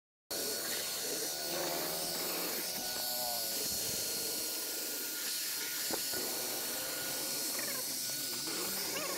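Steady hiss with a faint constant high whine, and a single click about six seconds in.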